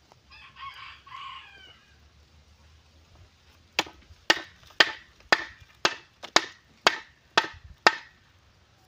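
A short bird call in the first two seconds, then about nine sharp knocks at about two a second: a loose part being banged back into place without a hammer.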